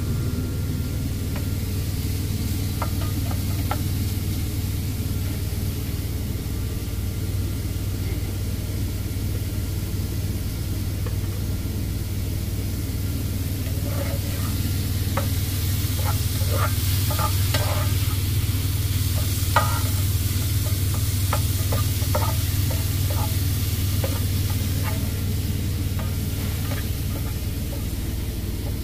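Shrimp and onions sizzling in an electric skillet while a spoon stirs them, scraping and tapping against the pan in a run of sharp clicks from about halfway through. A steady low hum sits underneath.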